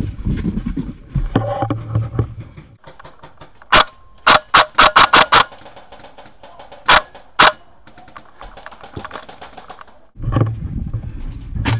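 Airsoft rifle firing sharp pops: a single shot, then a quick string of about six, then two more. A low rumbling noise runs before and after the shots.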